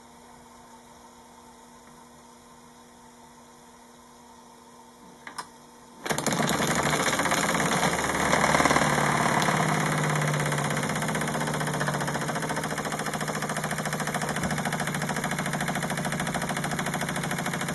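Wilesco D16 toy steam engine, at first stopped with only a faint steady hum, then, after a couple of clicks, starting up suddenly about six seconds in and running steadily in reverse with a fast, even clatter.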